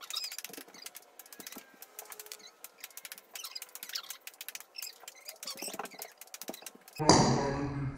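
Light, scattered clicks and taps of a ping pong ball bouncing and skittering across wooden floorboards. About a second before the end comes a sudden, much louder thump that rings on as it fades.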